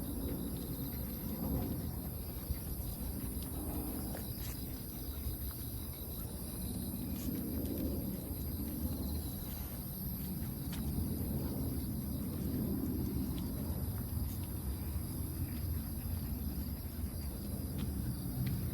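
Outdoor ambience: a steady high-pitched chirring of insects such as crickets, over a continuous low rumble of wind or handling on the microphone, with a few faint clicks.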